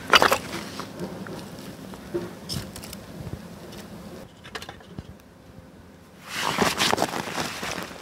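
Split-wood kindling burning in a small steel folding wood stove, with light crackling and scattered clicks and a sharp knock at the start. About six seconds in, a burst of crunching and scraping begins.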